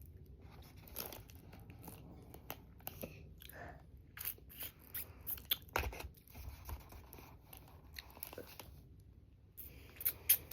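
Close mouth sounds of someone chewing soft, sticky mochi ice cream: irregular wet clicks and smacks, with a stronger one about six seconds in.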